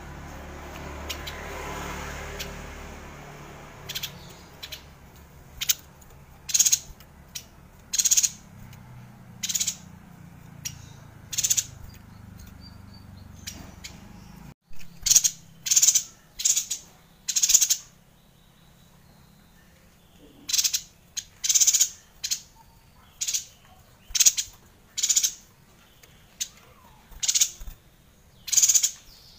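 Caged yuhina giving short, sharp, high-pitched chirps, one or two at a time, at irregular gaps of about a second.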